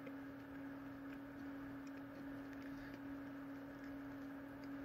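Steady low hum with faint background noise: room tone.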